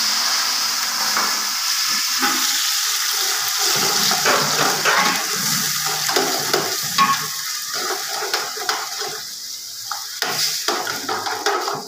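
Onions fried golden brown, sizzling in hot oil in a steel pot, with the clatter and scrape of a metal spoon stirring them.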